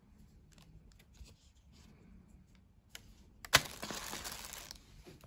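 Light clicks and taps of a plastic phone case being handled, then a sharp click and about a second of clear plastic packaging bag crinkling.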